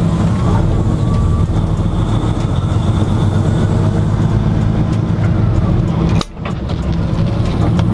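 Peterbilt 579 semi truck's diesel engine running steadily as the truck drives, heard from inside the cab as a deep drone with road noise. The sound briefly drops out about six seconds in.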